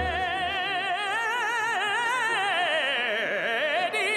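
Operatic singing voice holding one long high note with wide vibrato. The pitch sinks about three seconds in and climbs back near the end.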